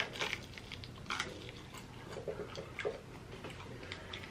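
Close-up mouth sounds of someone chewing fried chicken: irregular small clicks and smacks.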